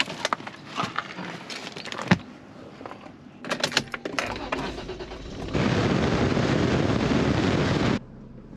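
Keys jangle as the ignition key of a truck is turned, followed a second or so later by a loud, steady rush of engine noise as it starts and runs for a couple of seconds before cutting off suddenly.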